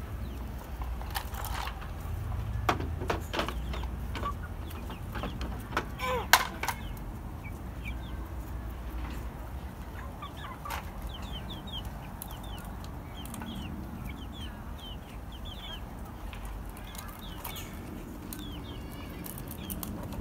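A flock of chickens resting together, clucking contentedly. There are scattered sharp clicks and knocks in the first seven seconds, the loudest about six seconds in, and a run of short, high falling chirps in the second half.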